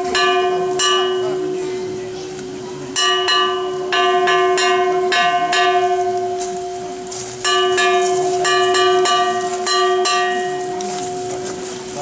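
A small metal bell struck in quick runs of several strokes, each run a few seconds apart, with its ringing tone carrying on steadily between the strokes.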